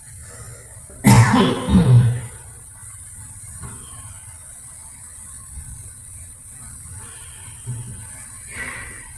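A person coughing: two loud coughs in quick succession about a second in.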